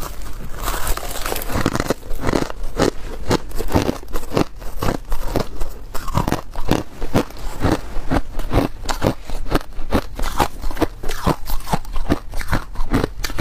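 Crushed ice being bitten and chewed close to the microphone: a dense run of crisp, crackling crunches.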